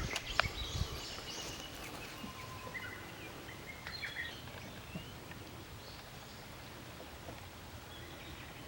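Quiet outdoor ambience with a few brief, faint bird chirps, most of them in the first half, and a couple of sharp clicks at the very start.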